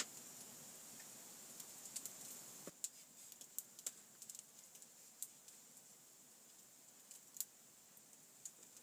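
Near silence with a small wood fire crackling faintly: scattered single pops and ticks at irregular intervals.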